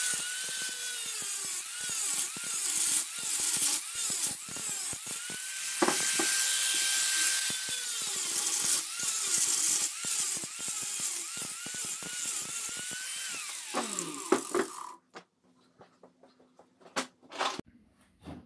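Small high-speed power tool running with a high whine and hiss, its pitch sagging and recovering again and again as it is pressed into work. It winds down and stops about fourteen seconds in, followed by a few light clicks.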